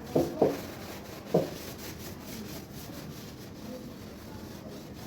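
Kitchen cleaning: a cloth or scrubber rubbing over a surface, with three short knocks of things being handled within the first second and a half.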